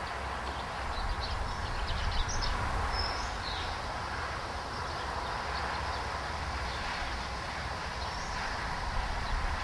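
Outdoor ambience: wind rumbling on the microphone over a steady hiss, with a few short high bird chirps about two to three seconds in.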